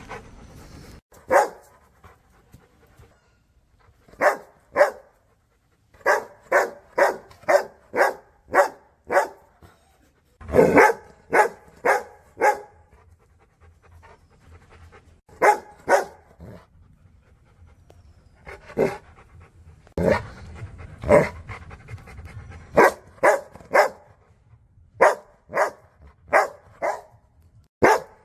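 Rottweilers barking in bouts: single barks and runs of several quick barks, with pauses between them.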